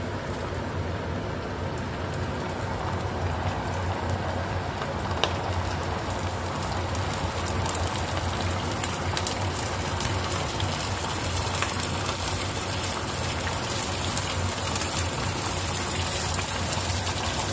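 Flour-coated chicken pieces deep-frying in hot oil in a pot, just added to the oil: a steady, dense sizzle with a few sharp pops.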